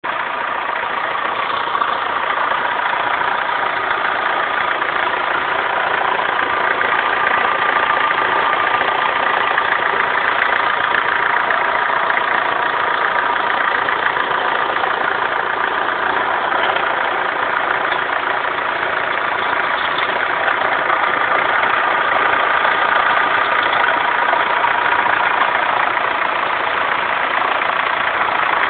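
Renault Laguna 1.9 dCi four-cylinder turbodiesel engine idling steadily, with a steady high-pitched tone on top of it. This is the weird sound the owner is trying to track down.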